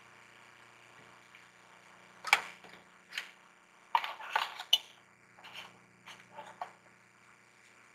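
Small makeup items clicking and clattering as they are handled and set down on a desk: a sharp click a little over two seconds in, a quick cluster of clicks around four to five seconds, then a few lighter taps.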